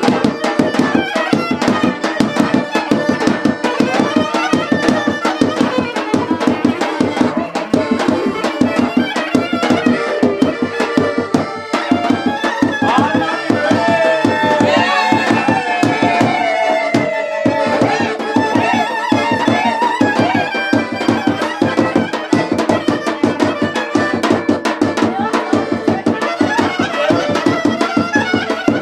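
Instrumental folk-style dance music: a fast, driving hand-drum beat under a melodic lead that plays sliding, ornamented runs about halfway through.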